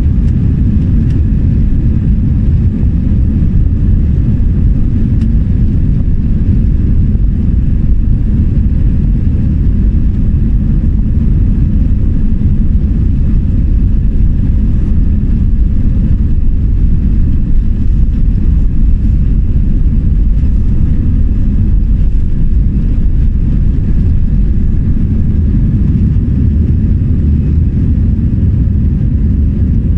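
Steady, loud low-pitched noise of an Airbus A319's jet engines and airflow heard from inside the passenger cabin, with no change in pitch.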